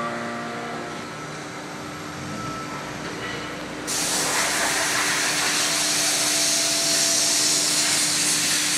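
Steady workshop machinery hum with several held tones. About four seconds in, a sudden loud hiss starts and keeps on steadily.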